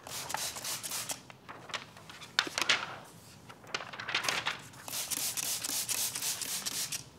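Sheet of wet paint protection film being handled and peeled from its backing liner, crackling and rubbing in several uneven stretches, with a longer run in the last two seconds.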